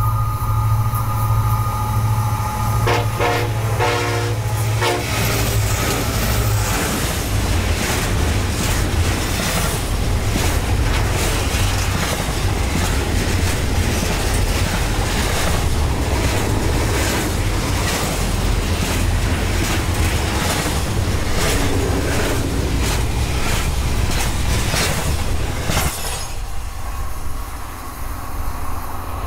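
Union Pacific diesel locomotive sounding its horn as it approaches, over the rumble of its engine; the horn breaks into short blasts and stops about five seconds in. The double-stack container cars then roll past with wheels clicking over the rail joints, and the noise drops near the end as the train goes by.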